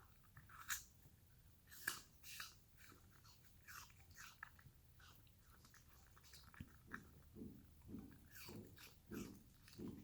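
A Pomsky chewing a slice of apple: several crisp crunching bites in the first few seconds, then quicker, softer chewing through the second half.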